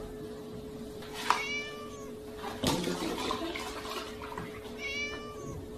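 A kitten meowing twice, about a second in and again near the end, with a splash of milk pouring from a tipped carton into a plastic tub between the meows, over a steady hum.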